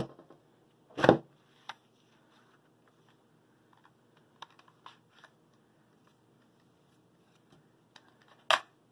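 A handheld craft tag punch clacking as it is pressed down through patterned paper to cut out a small paper tag. There are two sharp clacks at the start and about a second in, a few light clicks of the tool and paper being handled, and another clack near the end.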